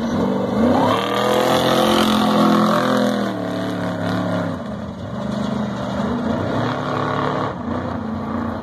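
Off-road race truck's engine at full throttle passing close by: the pitch climbs as it approaches, holds high until about three seconds in, then drops as it goes past and fades as it drives away.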